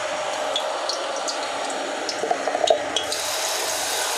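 Blended spice paste of shallots, garlic and shrimp paste sizzling in hot oil in a wok as it is poured in. It is a steady frying hiss with small scattered crackles, and the hiss grows brighter about three seconds in.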